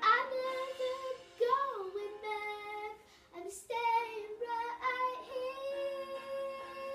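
A young girl singing, holding long notes, with a quick up-and-down slide in pitch about a second and a half in and a long steady note near the end.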